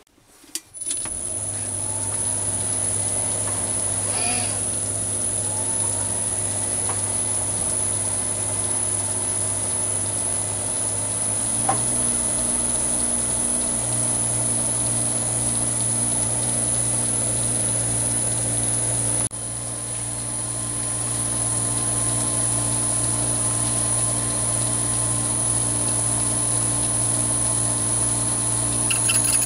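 Chinese mini lathe starting up and running steadily with a high motor whine, its chuck spinning an HSS slitting saw. The pitch steps up slightly about a third of the way in as the speed is adjusted.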